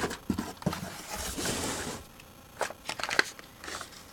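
Carded die-cast toy cars in plastic-and-cardboard blister packs being handled and shuffled: rustling and scraping, with a few light clicks and taps.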